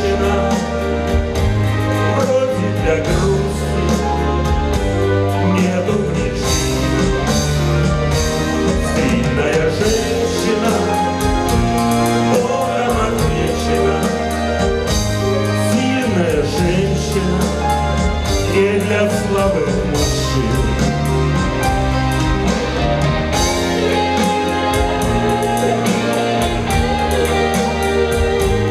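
Live song: a man singing with acoustic guitar and band accompaniment, a steady bass line underneath.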